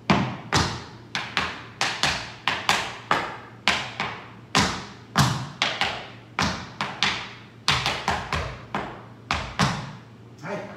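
Tap shoes' metal taps striking a wooden floor as a basic tap combination is danced: an uneven, fast run of sharp clicks and thuds that stops about ten seconds in.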